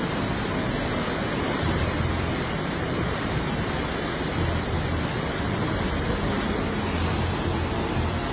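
Rushing river water: a steady noise with an uneven low rumble underneath.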